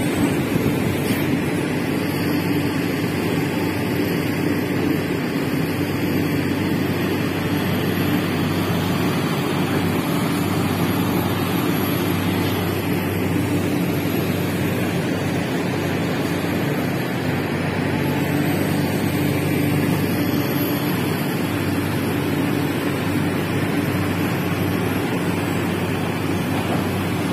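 Heavy diesel engines of Sumitomo SH350LHD excavators and dump trucks running in a steady drone while the excavators dig and load soil.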